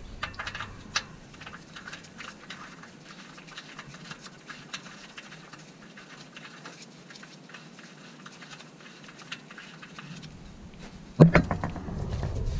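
Small, irregular clicks and ticks of a hand tool and gloved fingers working at the oil pan, refitting the drain plug after an oil change. There is one sharp knock near the end.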